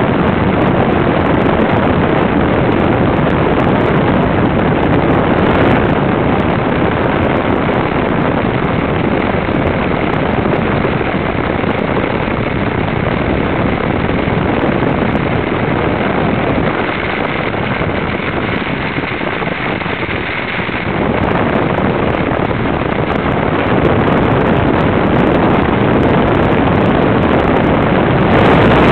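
Small model-airplane glow engine of a Hobbico Superstar .40 RC trainer running steadily, heard up close from a camera on the plane, mixed with wind noise on the microphone. It gets a little louder near the end.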